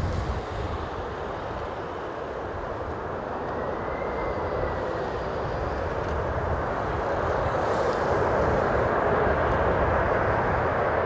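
Boeing 767-300ER airliner on final approach, its jet engine noise a steady rush that grows louder as it comes closer.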